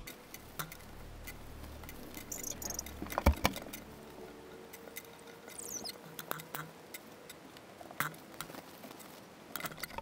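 Small plastic speed-cube pieces clicking and tapping as they are handled and set down on a wooden tabletop, with brief rustles of a paper towel wiping them clean. The clicks are scattered and irregular, loudest about three seconds in.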